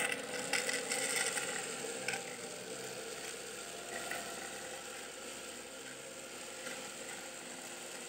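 Homemade mini vacuum cleaner running steadily: a small DC motor spinning a propeller cut from a spray can. A few light clicks in the first couple of seconds as small foam balls are sucked up the hose.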